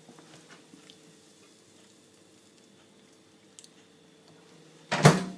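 Microwave oven door being shut with a single sharp clunk near the end, after several seconds of a faint steady hum.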